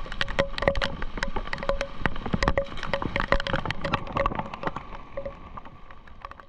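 Rain falling in big drops that strike a hard surface close by, as a fast irregular patter of sharp ticks with a faint ring. It thins out and fades near the end.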